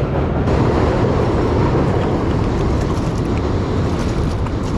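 Wind buffeting an action camera's microphone on open water, a steady low rumble.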